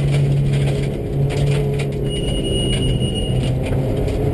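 Subaru rally car's engine running hard under load, heard from inside the cabin, with knocks and rattles from the rough gravel road. The engine note climbs near the end.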